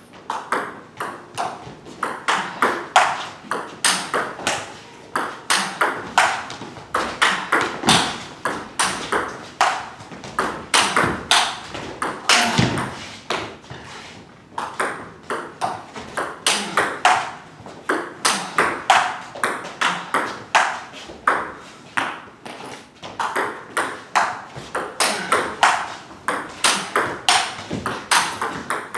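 Table tennis rally: a plastic ball clicking sharply off the bats and bouncing on the table, a steady run of several clicks a second, as topspin attacks meet forehand chops. The chopping bat is a SPINLORD Defender blade with Irbis II max rubber.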